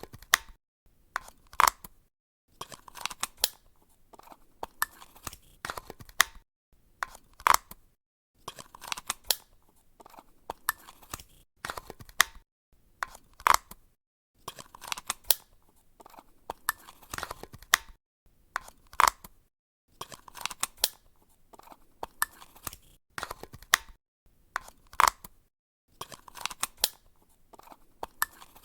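Batteries being changed in a remote control: clicks and rattles of the battery cover and cells being taken out and put back in, in repeated rounds separated by short pauses, each round with a sharp snap.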